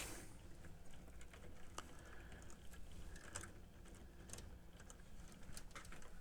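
Faint, scattered small clicks and light rustling of wires and parts being handled inside an opened cassette deck.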